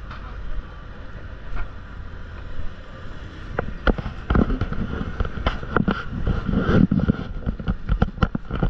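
City street noise: a steady low traffic rumble, with a run of irregular sharp clicks and knocks starting about halfway through.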